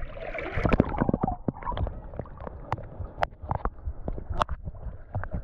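Water sloshing and gurgling, with many sharp clicks and knocks scattered through it, thickest in the first second or so.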